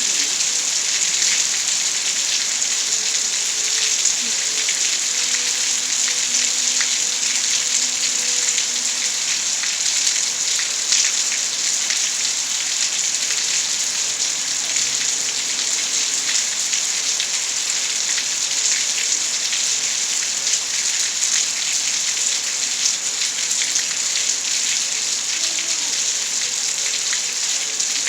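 Steady rainfall: a dense, even hiss of rain with a fine patter of individual drops striking surfaces.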